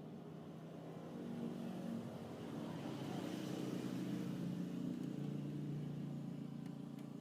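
Engine of a motor vehicle passing by, faint, swelling over a few seconds and fading away.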